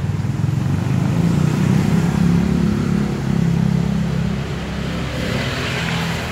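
An engine running steadily nearby, with a low, even hum that rises slightly in pitch about a second in.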